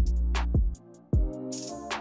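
Background music with a steady drum beat and bass, which drops out briefly about a second in.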